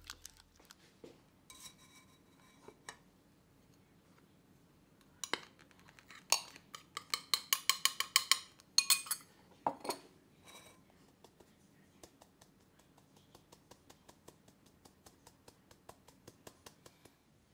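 Flour being sifted through a metal mesh sieve set on a glass bowl. Quick runs of sharp clinks as the sieve is shaken against the bowl are loudest about seven to ten seconds in. After that come softer, steady light taps, a few a second, as a hand taps the sieve.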